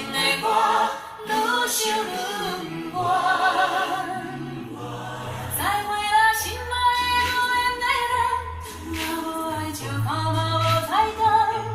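Music played back through Bose 301 loudspeakers: a woman sings a slow song with a wavering vibrato over instrumental accompaniment with a steady bass line.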